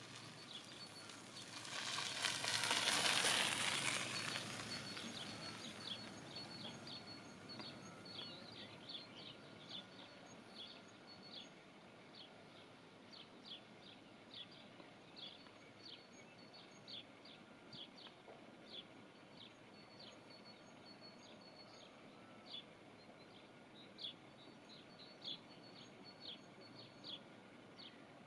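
Canada goose goslings peeping: short, high, down-slurred peeps, singly or in pairs, scattered irregularly over a low background hiss. In the first few seconds a broad rushing noise swells and fades, louder than the peeps.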